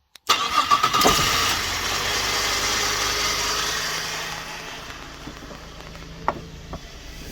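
2006 Holden Berlina's engine cranking briefly and catching, with the starter energised through a remote relay wired across the starter relay to get round the faulty ECU's no-crank fault. It runs at a raised idle for a few seconds, then settles to a quieter idle about two thirds of the way in.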